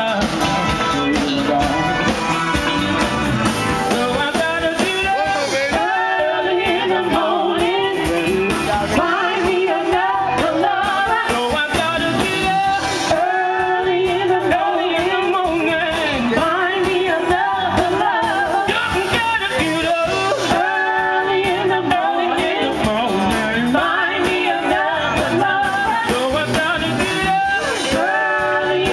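A live band with singers performing, amplified through a stage PA, with sung vocals over the band.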